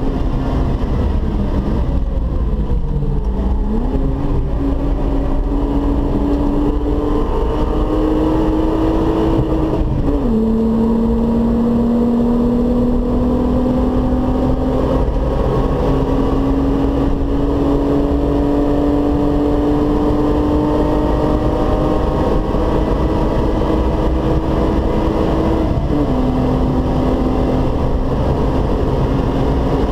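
Volkswagen Golf 3 VR6's narrow-angle six-cylinder engine at speed, heard from inside the car with steady road and wind noise. Its pitch sinks as the car slows, then jumps up with a downshift and climbs under hard acceleration. Twice, near the middle and again near the end, it drops sharply at an upshift and then climbs again.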